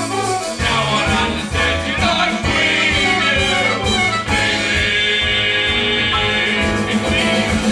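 Band music from a musical-theatre song: held chords, with a steady beat coming in about half a second in and carrying through.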